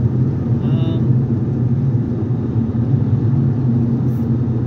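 Steady low rumble of a small van being driven, engine and road noise heard from inside the cabin.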